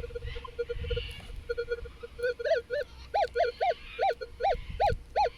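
Minelab Manticore metal detector's audio: a choppy, broken low tone for about two seconds, then repeated short rising-and-falling beeps, two or three a second, as the coil is swept back and forth over a buried metal target. It is a strong, clear target signal.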